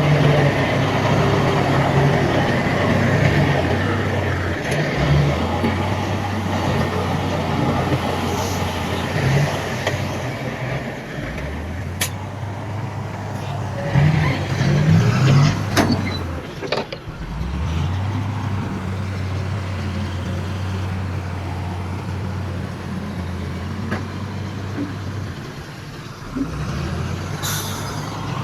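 Heavy diesel earthmoving machinery (dump trucks and a bulldozer) running, the engine note stepping up and down several times as it works under load. A few sharp clanks sound over it about midway and near the end.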